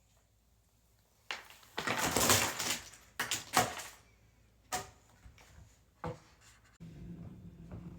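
Handling noises: a few seconds of rustling and clattering, two sharp knocks, then a steady low hum.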